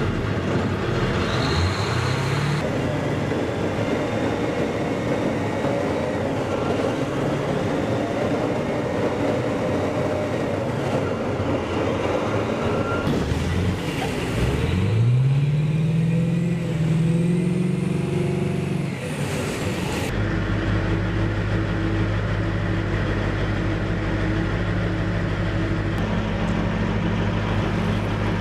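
Assault amphibious vehicle's engine running, with the pitch rising as it revs up twice, briefly near the start and again about halfway through. About two-thirds in the sound changes abruptly to a steady, even engine drone.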